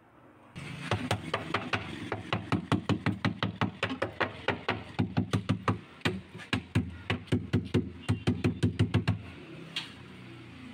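Wooden mallet tapping rapidly on a chest freezer's sheet-metal inner liner, about four or five blows a second, working the liner back into place. The tapping pauses briefly about six seconds in and stops about nine seconds in.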